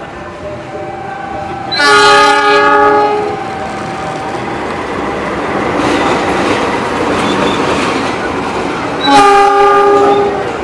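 CC206 diesel-electric locomotive sounding its multi-tone horn twice, a blast of about a second and a half some two seconds in and another near the end, as it passes hauling empty flat wagons; engine and wheel noise swells in between. A level crossing warning signal alternates between two notes in the background at the start.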